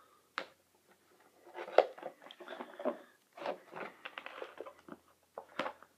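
An HDMI cable's retail packaging being handled and pried at: a single click, then from about a second and a half in a run of irregular crackles, creaks and clicks.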